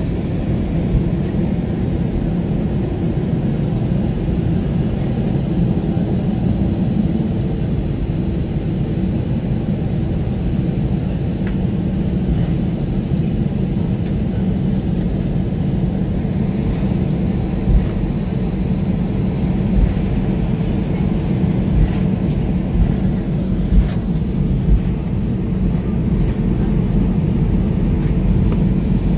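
Passenger-cabin noise of an Airbus A320ceo taxiing after landing: a steady low rumble from the engines and rolling landing gear, with a faint high whine that fades about halfway through. A few short low bumps come in the second half.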